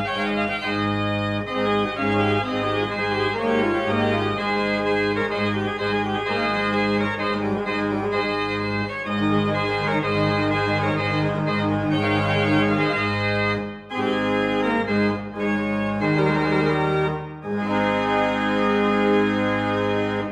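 Organ music playing sustained chords, with two brief breaks between phrases in the last third.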